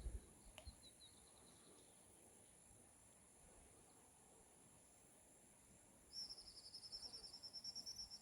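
Quiet countryside ambience: a few faint high chirps about a second in, then a fast, high-pitched animal trill starting about six seconds in.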